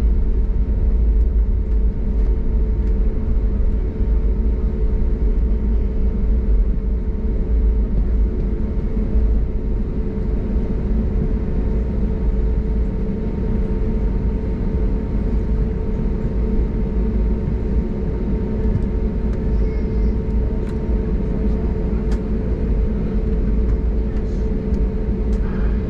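Steady engine and airflow noise heard inside the passenger cabin of an Airbus A320neo in flight: a deep, even rumble with a constant hum tone over it.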